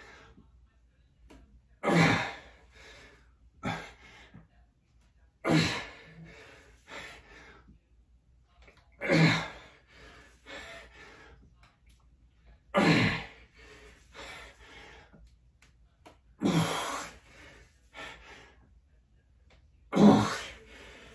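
A man's forceful grunting exhalations of effort, one with each repetition of an X3 resistance-band bar exercise. There are six of them, about every three and a half seconds, each loud and dying away quickly, with a few quieter breaths in between.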